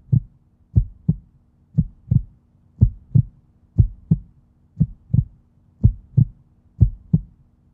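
Heartbeat sound effect for suspense: a double lub-dub thump about once a second, over a faint steady low hum.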